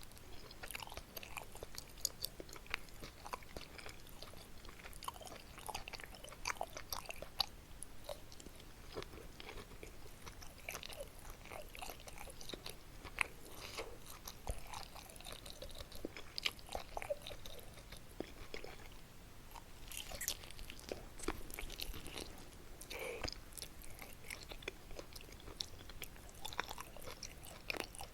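Close-up chewing of kimchi and meat dumplings (mandu): irregular wet mouth smacks, clicks and bites.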